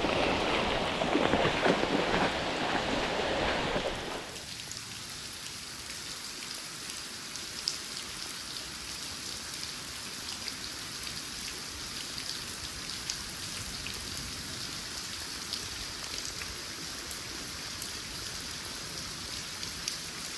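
Steady rain falling, a fine hiss dotted with small drop ticks. For about the first four seconds a louder rushing noise covers it, then cuts off suddenly.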